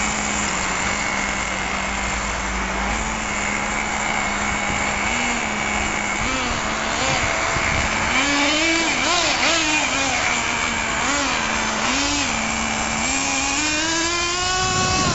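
Nitro RC car's small glow-fuel engine running with a steady buzz at idle, its throttle blipped several times from about six seconds in, then the revs climbing steadily near the end.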